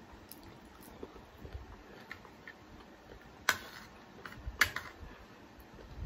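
A metal spoon clinking against a plate while scooping rice: two sharp clinks about a second apart, the first followed by a short scrape, with faint small ticks around them.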